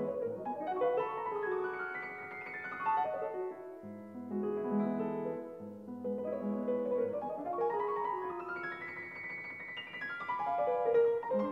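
Bösendorfer concert grand piano played solo in a classical piece: two waves of fast runs climbing up the keyboard and falling back, over repeated low chords.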